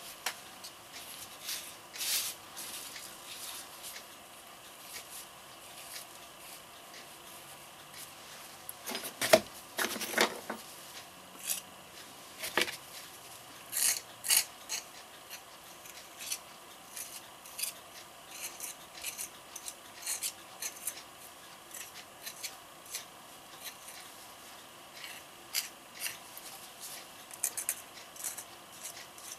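Small metal putty knife scraping and spreading cement patch over a concrete statue's leg in short, irregular strokes, with a few louder knocks around nine to ten seconds in.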